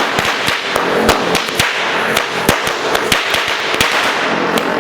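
A string of firecrackers going off: rapid, irregular sharp bangs over a crackling hiss, stopping just before the end.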